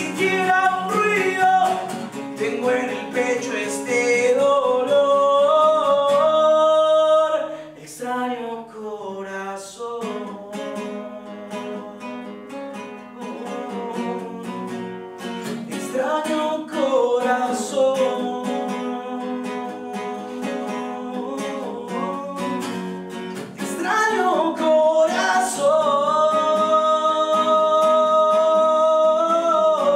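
A man singing with a strummed acoustic guitar, drawn-out sung notes with no clear words; the music drops quieter for a couple of seconds about eight seconds in, and long notes are held near the end.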